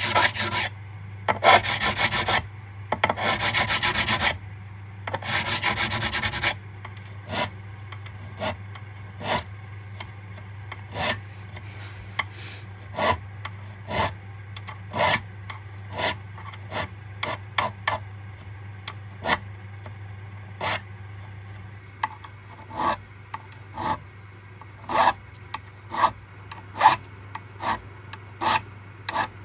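Metal file rasping across stainless steel guitar frets during fret dressing. There are a few long strokes of about a second each at first, then a run of short, quick strokes roughly one a second.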